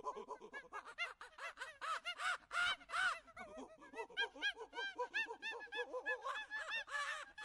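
Birds chirping and calling, many short quick notes one after another, faint.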